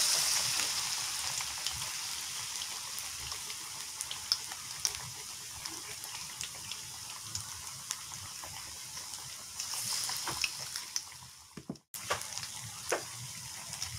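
A spoon stirring thick, wet flour batter in a plastic bowl, with small wet clicks, over a steady hiss of oil sizzling in a frying pan. The sound cuts out for a moment near the end.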